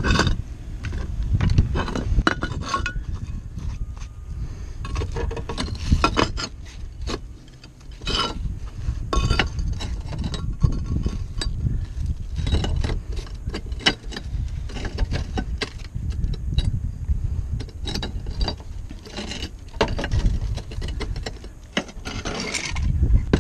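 Repeated clinks, knocks and scrapes of broken roof tile pieces and hand tools being handled on a tile roof, over wind buffeting the microphone.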